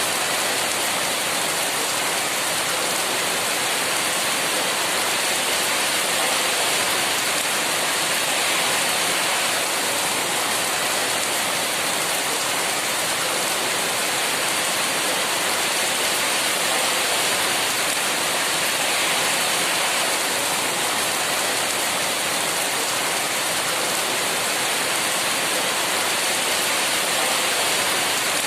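Heavy rain falling steadily, an even unbroken hiss with no thunder claps.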